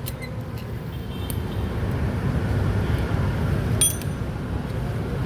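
Steady low rumble of road traffic, with a single sharp metallic clink about four seconds in.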